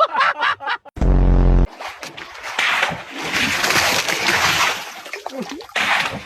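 Water splashing and sloshing for several seconds, after a brief loud buzz about a second in.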